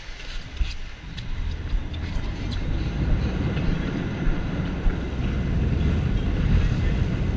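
Steady low rumble of a sportfishing boat running through the water, with wind buffeting the camera microphone; it grows louder about a second in, with a few faint knocks over it.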